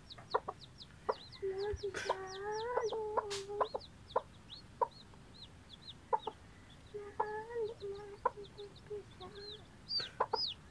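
Baby chicks peeping over and over in short, high, downward-sliding peeps, while a hen gives low, drawn-out clucking calls twice, about two seconds in and again about seven seconds in. A few short clicks and taps are scattered through.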